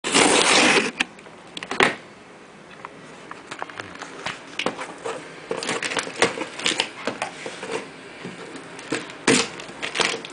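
Parcel packaging being pulled open and unwrapped: crackling rustles and many quick clicks. There is a loud rustle in the first second, a sharp crack a moment later, and another loud rustle near the end.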